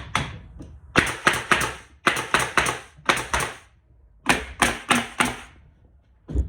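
Pneumatic 18-gauge narrow-crown stapler firing staples into cedar boards in quick bursts of three or four shots, each shot a sharp crack with a short hiss.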